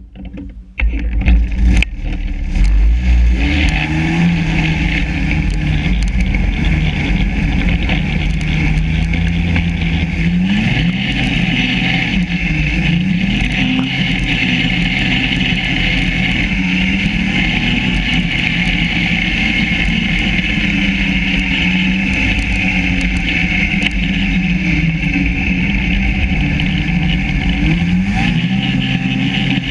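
Yamaha SRV 540 snowmobile's two-stroke engine starting up about a second in, then running with its pitch rising and falling several times as the throttle is worked.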